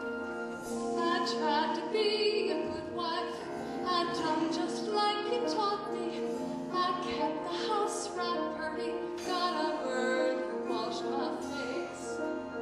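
A woman singing a slow classical-style song with marked vibrato, over held instrumental accompaniment.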